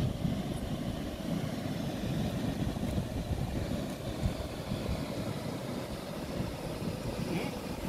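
Wind buffeting the microphone in uneven low gusts, over a steady rushing hiss from the nearby river.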